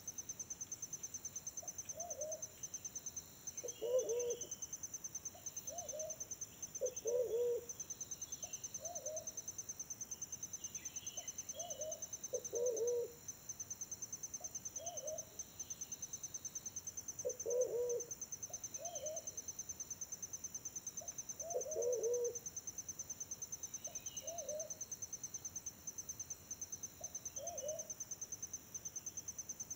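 Forest pigeons cooing: short low coos about every second, with a louder, deeper wavering coo every five seconds or so. A steady, fast-pulsing insect trill runs high above.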